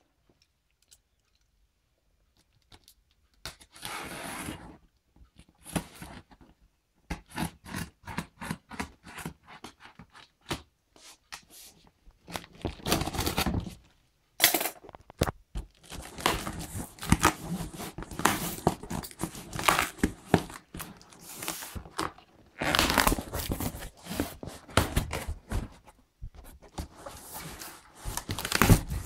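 Packing tape being slit and torn open along the seam of a cardboard shipping box, with the cardboard scraping and rustling. The first few seconds are nearly silent, then come irregular tearing rasps and sharp clicks.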